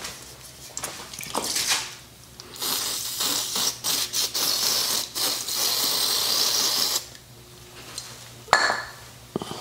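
A cloth rag scrubbing the inside of a rusty bicycle bottom bracket shell: a long stretch of rubbing hiss in the middle, with shorter strokes before it and a couple of sharp knocks near the end.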